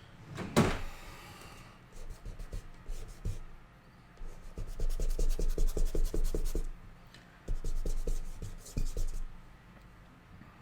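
An eraser rubbed quickly back and forth on a drawing, in two runs of fast strokes, after a single knock about half a second in.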